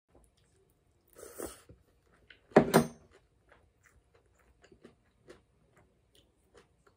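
Eating cold noodles: a short slurp about a second in and a louder slurp near the middle, followed by quiet chewing with small mouth clicks.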